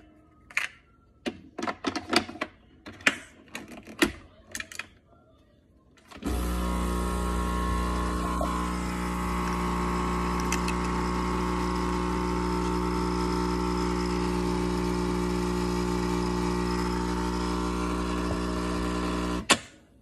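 A few clicks and knocks as the capsule holder is fitted into a Dolce Gusto capsule coffee machine, then about six seconds in the machine's pump starts and runs with a steady, loud hum for about thirteen seconds while it brews coffee into the glass. It stops near the end with a click.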